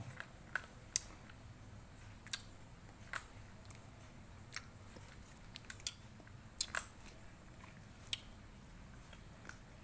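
Tabby cat eating from a plastic bowl: faint, irregular crunches and clicks of chewing, about one or two a second.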